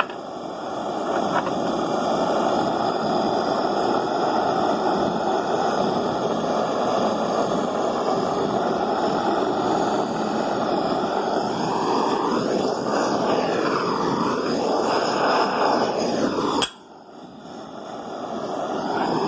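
Handheld butane gas torch flame running with a steady rush, heating aluminium for brazing. Its tone sweeps up and down for a few seconds. Near the end it cuts out sharply with a click, then swells back up.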